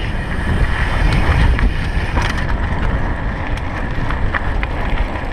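Mountain bike rolling fast down a dirt trail: steady wind buffeting the microphone and tyre rumble, with scattered light clicks and rattles from the bike over bumps.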